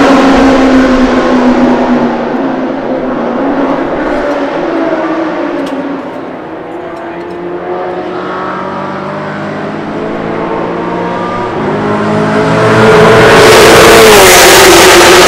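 V8 engines of Super 6000 stock race cars at speed. One car's engine fades away with falling pitch at the start, and distant engines carry on quieter for several seconds. Near the end another car grows louder and passes close by, its pitch dropping sharply as it goes past.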